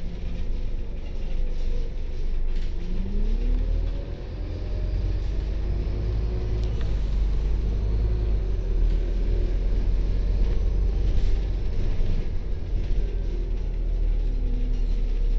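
Bus engine and drivetrain heard from on board, a steady low rumble under way, with the engine note rising about three seconds in as the bus picks up speed.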